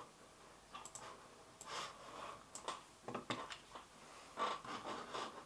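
Quiet room with faint breaths and a few soft clicks, from a computer mouse as the drawing on screen is cleared.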